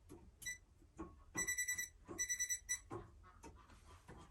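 Electronic beeping from a non-contact voltage tester: a single short high beep, then two quick runs of rapid high beeps about a second and a half in and again just after two seconds, with light clicks of handling.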